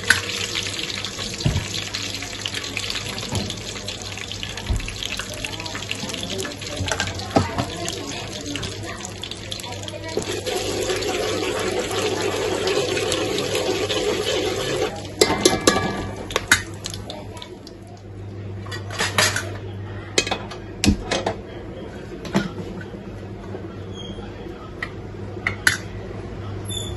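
Whole spices (bay leaves, cloves, black pepper, cinnamon) sizzling in hot oil in an aluminium pot. The sizzle dies down about halfway through, followed by scattered clinks and scrapes of a metal spoon against the pot.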